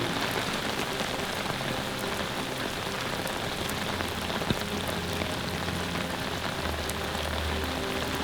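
Steady rain falling, with faint low held tones underneath that grow stronger about halfway through.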